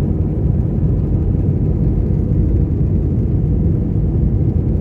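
Airplane's steady low engine and air rumble, an even drone with a faint constant whine above it and no change in pitch or level.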